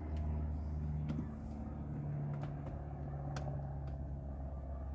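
Steady low hum of an idling car engine, its pitch stepping up slightly about two seconds in. Over it come a few light clicks and taps as a silicone light strip is pressed into the plastic dashboard trim.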